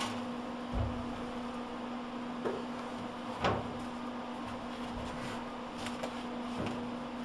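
A steady electrical hum under a faint hiss, with five short knocks and clicks scattered through it; the knock about halfway through is the loudest.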